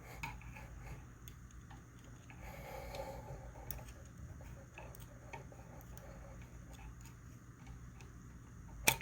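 Faint scattered ticks and small clicks of a small metal magazine release button being worked at its hole in a wooden rifle stock, with one sharper click near the end.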